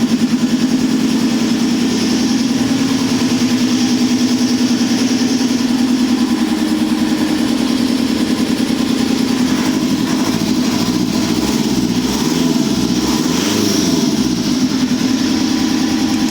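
Mitsubishi 4D56 2.5-litre four-cylinder turbodiesel running steadily, with the extraneous noises that the uploader puts down to a missing filter.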